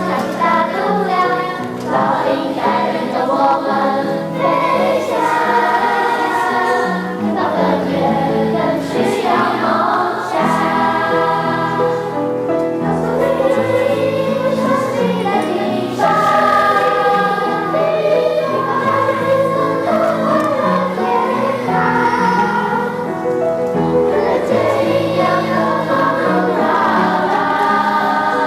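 A choir singing in harmony, several voice parts holding notes that change every second or so.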